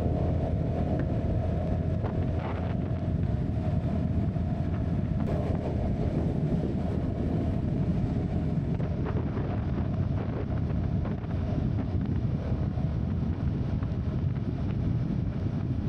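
Steady wind noise buffeting an action camera's built-in microphone at road speed, with the CFMoto 250NK's single-cylinder engine humming underneath as the motorcycle cruises on a wet road.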